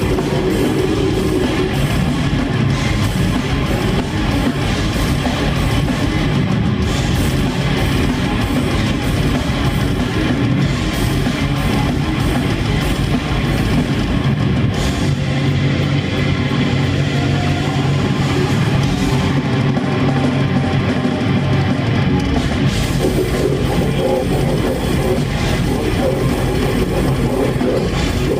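Death metal band playing live in a concert hall, heard from among the audience: electric guitars and drum kit, loud and steady.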